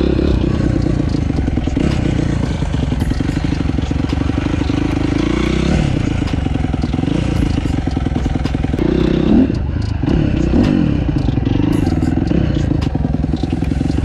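Dirt bike engine running as it is ridden slowly over a dirt track. The revs rise and fall a few times, most clearly about halfway through and again two-thirds of the way in.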